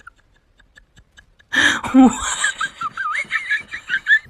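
Faint light ticking, then about a second and a half in, people burst out laughing: a loud, high, squealing giggle that wavers up and down in pitch.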